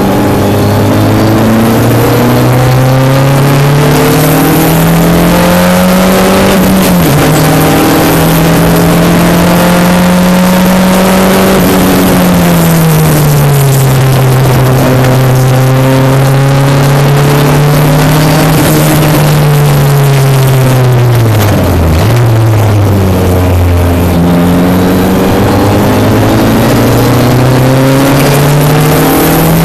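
Single-seater race car's engine heard onboard at speed, its pitch rising and falling with the revs. It drops sharply at gear changes about seven seconds in and again near twenty-two seconds, with a slower fall around twelve to fifteen seconds as the car slows.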